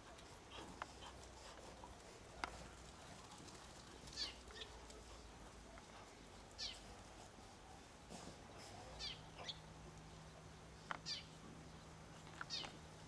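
Shar-Pei puppies whimpering and squeaking: short, high, falling cries, about eight or nine of them, scattered through the clip.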